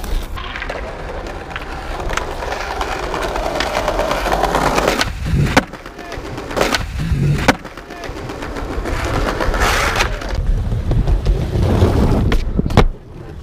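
Skateboard wheels rolling over hard paving, with several sharp clacks of the board popping and landing tricks.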